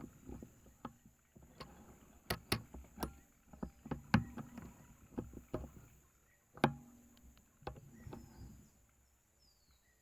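Irregular close knocks and clicks of handling noise, as gear and the air rifle are moved and readied. The sharpest knock comes about two-thirds of the way in. Faint, short, falling bird chirps come near the end.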